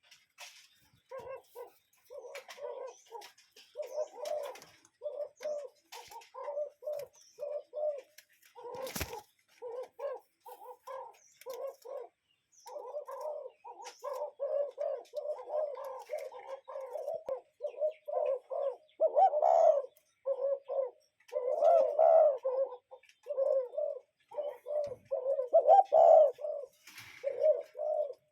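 Common cuckoo calling over and over, a steady string of short, low hooting notes. There is a single sharp click about nine seconds in.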